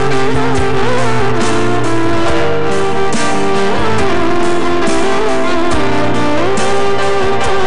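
A live band plays an instrumental with a sliding, bending lead melody line over keyboards and sustained bass notes.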